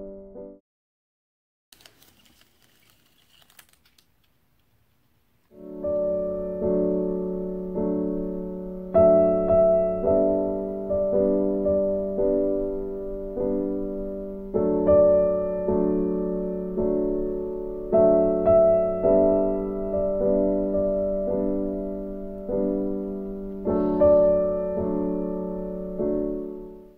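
Background piano music: soft chords struck one after another, each ringing and fading. It stops about half a second in, leaves about five seconds of near silence, then comes back.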